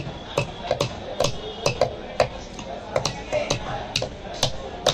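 Knife blade scraping the scales off a large barramundi (bhetki), with a sharp click at each stroke, about two strokes a second.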